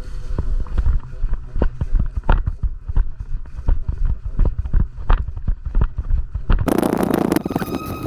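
Irregular knocks, thuds and rustling from a player's body-worn camera and gear while moving on foot. Near the end, a sudden louder rush of noise cuts in.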